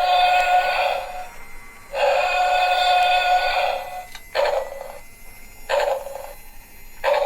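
Electronic sound effects from a remote-control transforming dinosaur robot toy's small speaker: two long, steady, buzzy tones, then three short blips.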